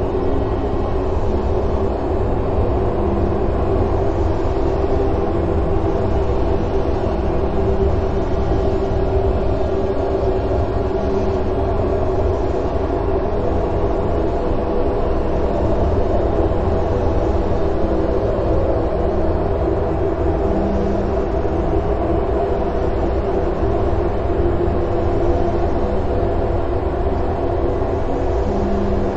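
Noise music: a loud, steady drone of distorted sound, a heavy low rumble under several held tones, with no beat or break.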